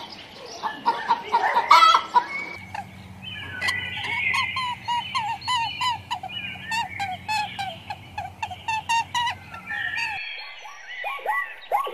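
Domestic fowl calling: many short clucks and chirps, in three stretches that change abruptly about two and a half seconds in and again near the end, the middle stretch over a low steady hum.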